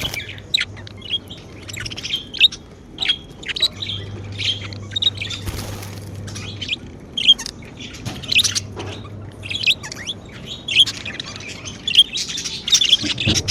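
Pet budgerigars chirping and twittering: a steady run of short, quick, high chirps.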